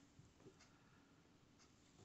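Near silence, with a few faint rustles of yarn and hands handling a crocheted piece while whip-stitching it with a yarn needle.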